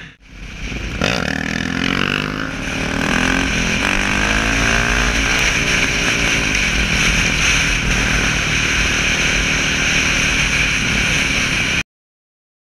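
KTM supermoto's single-cylinder engine pulling hard on the road, the revs climbing and dropping through several gear changes in the first few seconds, then holding steady at speed under constant wind rush on the helmet microphone. The sound cuts off abruptly near the end.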